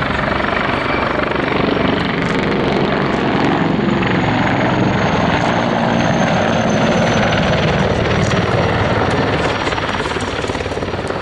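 Mil Mi-24V Hind E attack helicopter flying a display pass: the pulsing beat of its main rotor over the rush of its twin turboshaft engines. A faint high whine slowly falls in pitch in the middle as the helicopter sweeps past, and the sound eases slightly near the end.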